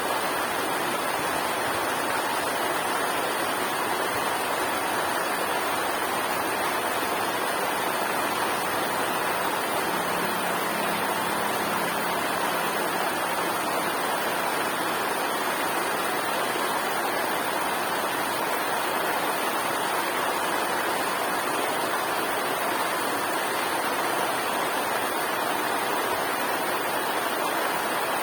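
River water rushing over a small waterfall, a steady, even roar with no pauses. A faint low hum comes in around ten seconds in and fades a few seconds later.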